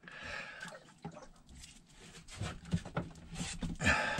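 Rustling and scattered small clicks as heavy battery cables and their metal ring lugs are handled and knocked against battery terminals. The clicks come louder and closer together near the end.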